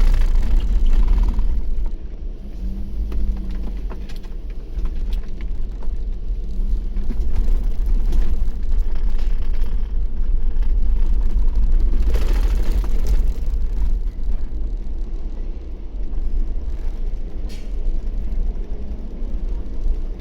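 Steady low rumble of a vehicle, with a brief hum a few seconds in and a louder swell about two-thirds of the way through.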